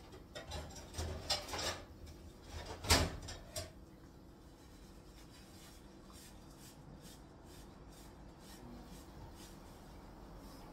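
English bulldog crunching and gnawing on a dried corn-cob chew, a quick run of crunches and knocks in the first few seconds with the loudest about three seconds in, then only faint ticks.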